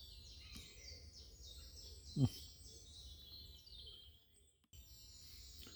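Faint woodland birdsong: many small birds chirping and trilling high up, with a brief low, voice-like sound about two seconds in and a short dropout a little past four seconds.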